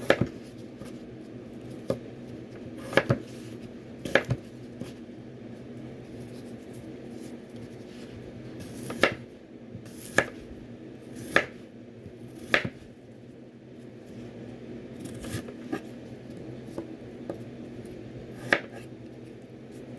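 Kitchen knife striking a cutting board in single slow cuts, about ten knocks spread irregularly, with a run of four at an even pace about a second apart in the middle. A steady low hum runs underneath.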